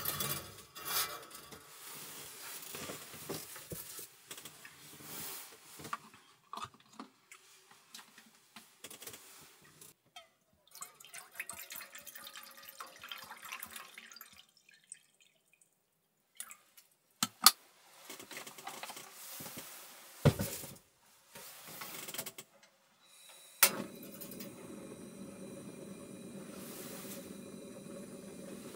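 Clinking of a metal sierra cup being handled, then water poured from a bottle into the cup, with sharp clicks and a knock. Near the end a sharp click as the portable gas stove is lit, and the burner then runs with a steady hiss.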